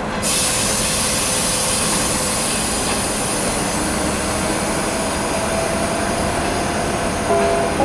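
ChS4t electric locomotive with a steady, loud rush of air that starts abruptly under a second in and holds. Faint steady tones come in over it in the second half.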